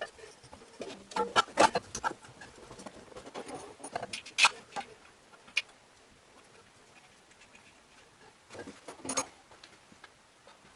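Scattered clicks and knocks of hand tools and metal engine parts being handled during engine assembly, busiest in the first few seconds, with another short cluster near the end.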